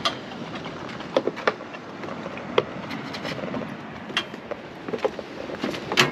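Steady outdoor rushing noise, like wind and surf, broken by a handful of short sharp clicks and knocks. The loudest knock comes near the end.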